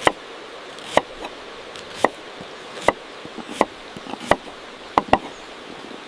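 Knife chopping on a cutting board: about eight sharp strikes, roughly one a second, two of them in quick succession near the end.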